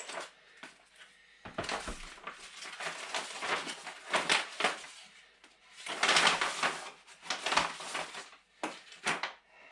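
A parcel being unpacked by hand: irregular rustling, scraping and tearing noises with a few sharp clicks, the loudest about six seconds in.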